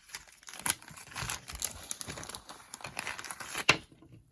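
Packaging crinkling and rustling in the hands, with a run of small clicks and a sharp click near the end, as the next piece of jewelry is unwrapped.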